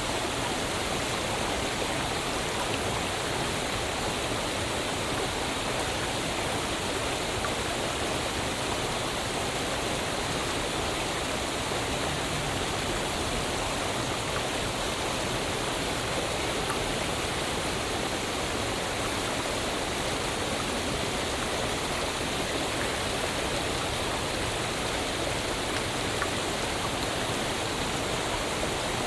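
Waterfall: water falling and splashing in a steady, even rush with no break.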